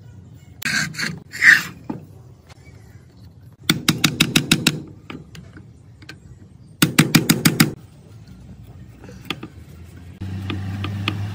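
A steel screwdriver set in a rusted screw on a sewing-machine motor mount is struck with two quick runs of sharp metal taps, about seven or eight each, to shock the seized screw loose. A couple of short scrapes come before the taps, and a steady low hum starts near the end.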